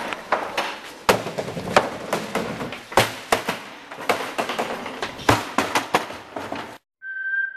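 Trash cans being kicked and knocked about: a run of irregular thumps and knocks, some much louder than others. Near the end the knocking cuts off suddenly and a high steady tone sets in.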